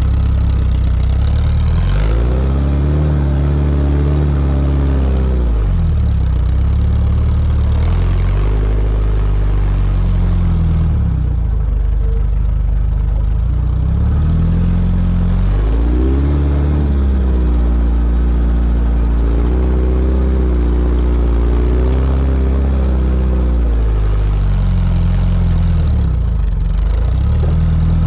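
Sporting trials car engine running loud under throttle, its revs rising and falling several times. The revs are held highest and wavering through the later middle, then drop back near the end.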